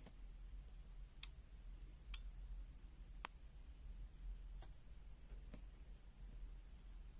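Near silence broken by about half a dozen faint, scattered clicks from handling the multimeter's test probes and resistor during a resistance measurement.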